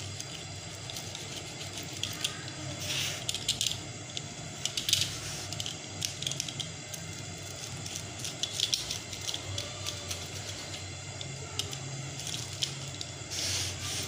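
Pizza cutter wheel rolling through a pizza's crust and across a wooden board: short, irregular crunching and scraping strokes over a steady low hum.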